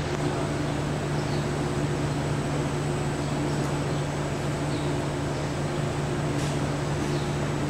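A steady low mechanical hum over a constant background hiss, even throughout with no breaks.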